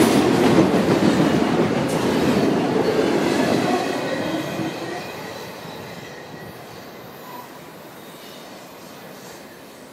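Union Pacific double-stack container freight train passing: steel wheels running on the rails, with a faint wheel squeal. The sound fades steadily from about four seconds in as the train moves away.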